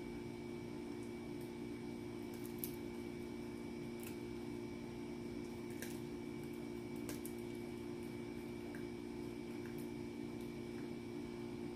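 Small dog chewing a treat: a few faint crunches and clicks, spaced a second or more apart, over a steady low hum.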